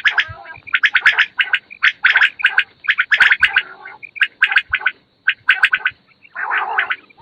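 Quails calling in a run of short, rapid rattling bursts, one after another with brief gaps.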